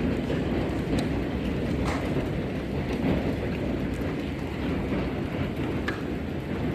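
Hailstorm with heavy rain pounding down in a dense, steady roar, with scattered sharp clicks of hailstones striking hard surfaces.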